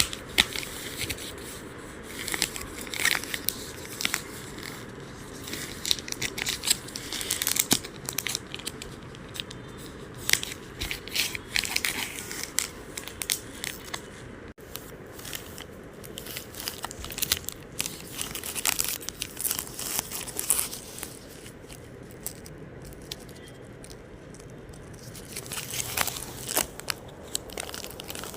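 Cadbury Dairy Milk chocolate bar wrapper being torn open and crinkled by hand, with irregular crackles and rustles throughout.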